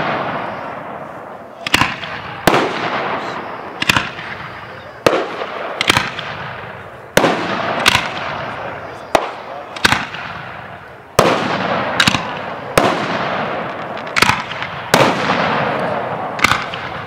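Aerial fireworks bursting one after another, a sharp bang about every second, each fading away in a rumble and crackle before the next.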